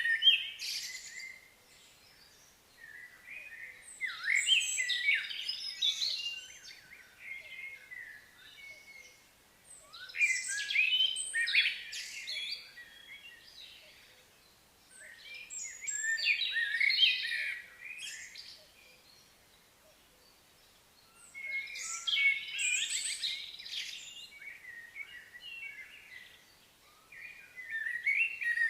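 A songbird singing in repeated, varied warbling phrases, each about two to three seconds long and coming roughly every six seconds, with short quiet gaps between.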